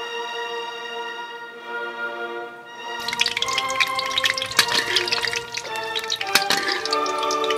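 Background music with held notes throughout; about three seconds in, an egg frying in hot oil starts crackling and spitting over the music.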